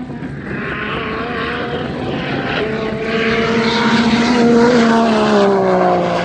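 Nissan Patrol's swapped-in VR38DETT twin-turbo V6 pulling hard at full throttle on a drag run, with a rushing hiss above the engine note. The sound grows louder, then drops in pitch near the end as the truck speeds away.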